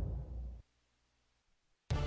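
The tail of a logo-sting music cue dying away about half a second in, then dead silence, with new music cutting in just at the end.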